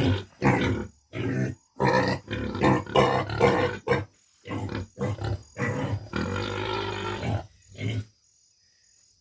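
Farm animals calling in a quick series of short, low, grunt-like calls, with one longer drawn-out call in the middle, then falling silent about eight seconds in.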